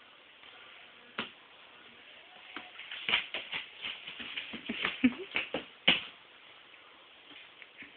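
Irregular light taps, knocks and shuffling on a hard floor from a toddler walking about and handling a toy. They bunch up between about three and six seconds in, with the sharpest knock near six seconds.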